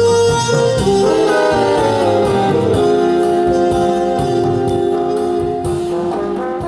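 Cha-cha-cha dance music with a steady beat and held notes, starting to fade out near the end.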